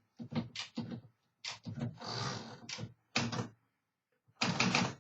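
1957 Remington Quiet Riter manual typewriter being worked: a run of separate mechanical clacks, a longer rasping stretch about two seconds in, and a dense clatter near the end.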